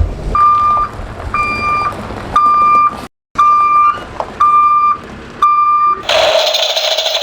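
Excavator reversing alarm: six evenly spaced steady high beeps, about one a second, over a low engine rumble, with music coming back in near the end.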